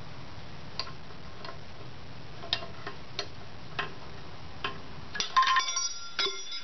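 Light metallic clicks of steel brake parts and hand tools being handled, spaced irregularly. About five seconds in comes a louder clatter of metal with a brief ringing, then one more click.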